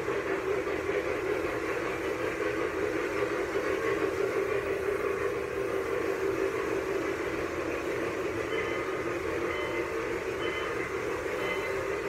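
Lionel O scale model train running on the track: a steady whirring rumble of the locomotive and wheels on the rails. In the second half, a faint high tone starts repeating about once a second.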